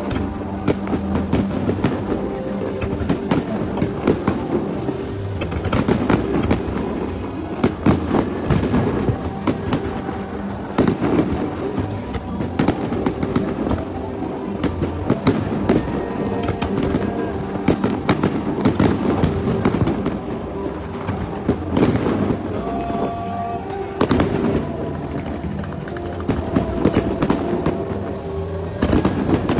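Fireworks display: aerial shells bursting in many sharp bangs in quick succession, with music playing underneath.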